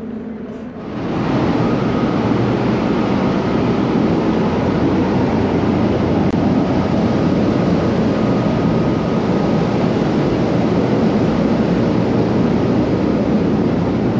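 Steady rushing and rumbling noise on the open deck of a moving ferry: wind on the microphone mixed with the ship's engine and ventilation noise. It comes in suddenly about a second in and stays loud and even, with a faint steady hum running through it.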